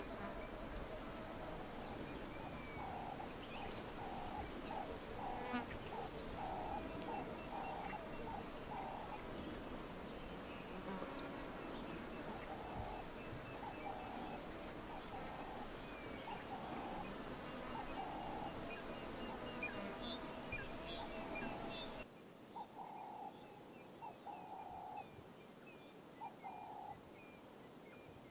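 Steady chorus of crickets or similar insects, with a fast pulsing trill, over a bird calling in groups of short repeated notes. About three-quarters of the way through, the insect sound cuts off abruptly and the bird calls continue more quietly.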